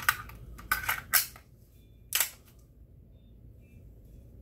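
Sharp metallic clicks and clacks from an AMT Automag V pistol as its magazine and slide are handled: about five clicks in the first two and a half seconds, two of them close together near the one-second mark.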